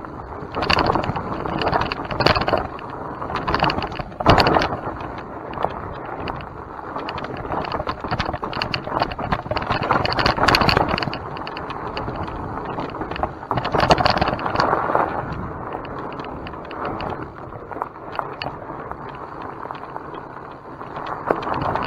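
Electric mountain bike ridden over a rough trail: tyres rolling on the dirt and the bike rattling and knocking over bumps, with harder jolts about 4, 10 and 14 seconds in.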